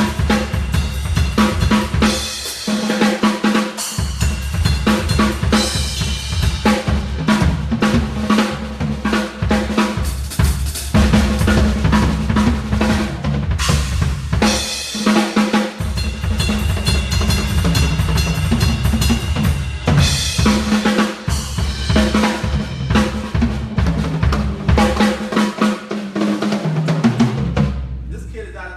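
Acoustic drum kit played in a sound check: fast continuous grooves and fills on bass drum, snare, toms and cymbals, ending near the end with the drums and cymbals ringing out and fading.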